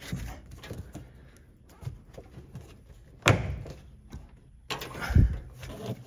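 Plastic washer tub-cover latch tabs being pressed back into place: a sharp snap about three seconds in, then a few knocks and a dull thump near the end as the lid seats.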